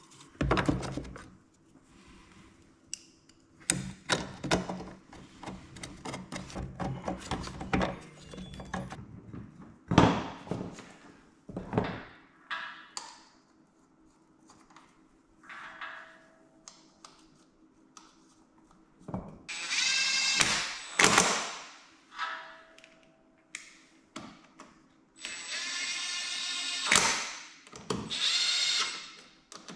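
A power drill running in two spells, a short one past the middle and a longer one near the end. Around them are knocks and clatter of tools and parts being handled.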